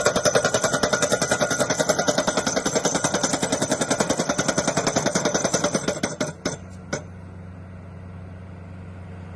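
Orteco Pick & Ram 1200J crawler pile driver's impact hammer striking a pile in rapid, even blows, about eight a second. The hammering stops about six seconds in, two last knocks follow, and then only the machine's steady engine hum remains.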